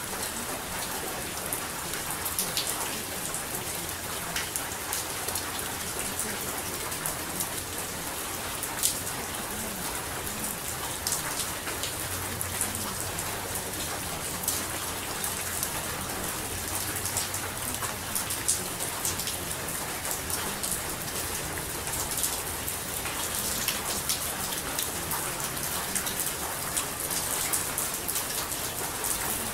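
Steady rainfall, an even hiss of rain with many scattered sharper drop hits.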